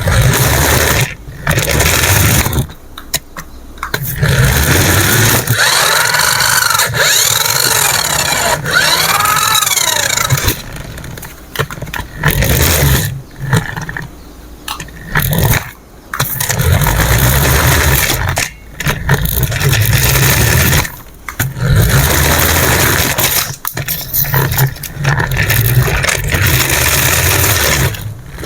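Remote-control toy vehicle run in stop-start bursts, its motor whirring loudly with short pauses between runs and a wavering whine that rises and falls in the middle.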